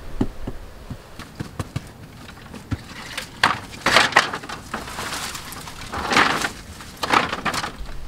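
Bamboo poles knocking and being handled: light knocks and clicks at first, then four louder scraping rattles from about three seconds in.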